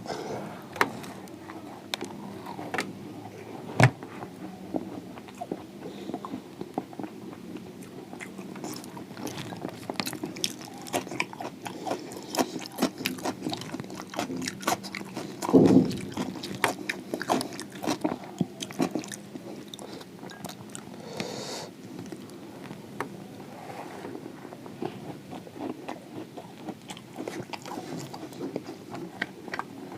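Close-miked eating of a crispy fried samosa: a continuous run of sharp crunches and chewing, with one louder thud about halfway through.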